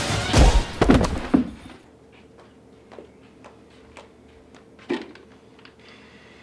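Several heavy punch thuds in the first second and a half, then quiet clicks and knocks of a plastic water jug being handled, with one louder knock about five seconds in and a sharp click near the end.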